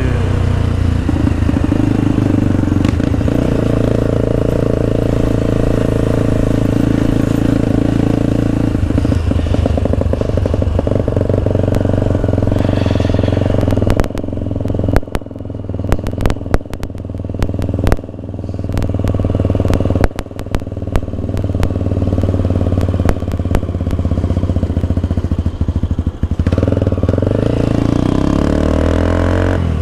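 Motorcycle engine running while riding, with a steady engine note. About halfway through, the note breaks up into irregular clattering and crackling for around ten seconds, then the steady engine note returns near the end.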